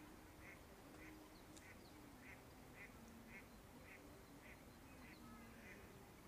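A faint, short animal call repeated steadily, about twice a second.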